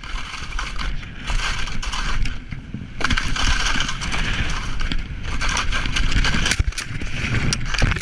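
Wind rushing over a helmet-mounted camera's microphone and skis scraping across snow on a fast downhill ski run, growing louder about three seconds in.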